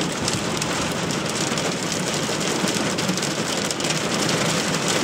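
Heavy rain pouring down and drumming steadily on a car's roof and windows, heard from inside the car.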